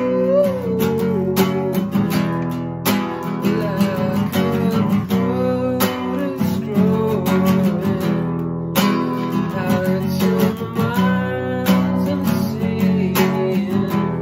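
Capoed acoustic guitar strummed in a steady rhythm, with a man's singing voice over it at times.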